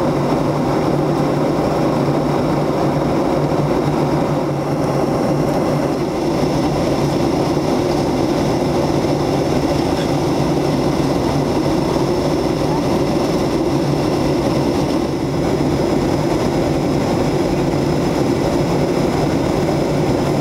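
Steady in-flight cabin drone of a jet airliner: engine and rushing airflow noise with a faint constant high whine, unchanging throughout.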